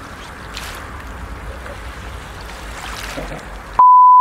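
Shallow seawater washing gently over shoreline pebbles and shells, a steady hiss. Near the end a loud, steady beep tone cuts in suddenly.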